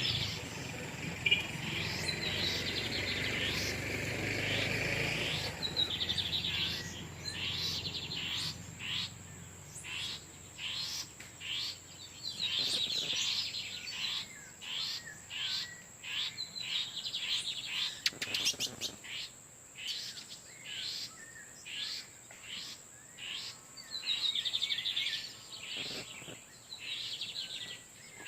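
Male lined seedeaters singing back and forth: phrases of quick, high, buzzy notes, repeated with short pauses between them.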